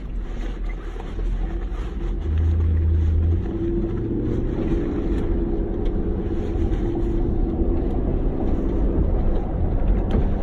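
A car's engine and road noise heard from inside the cabin, louder from about two seconds in as the car pulls away, then a steady drone.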